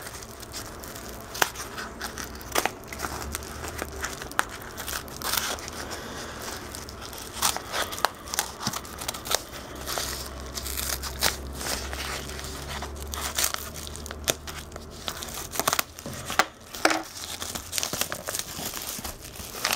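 Small scissors snipping along a padded paper mailer in irregular cuts, with the envelope crinkling as it is handled and pulled open.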